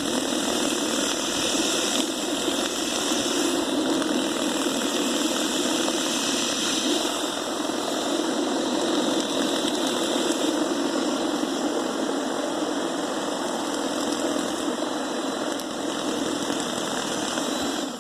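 Ryobi 1/2-inch hammer drill's electric motor running steadily at speed, turning a snowblower's auger through a pipe-and-paddle-bit extension, with a steady high whine over it; it cuts off at the very end.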